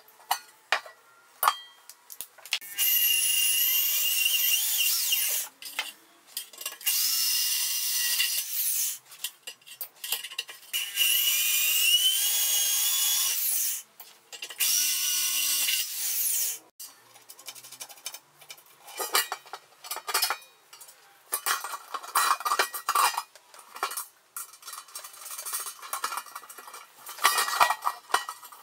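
Electric drill boring holes through the rim of a stainless steel pan, in four high-pitched runs of a few seconds each. About two-thirds of the way through this gives way to irregular metallic clinks and scraping as a threaded rod is pushed through the drilled holes and the pans are handled.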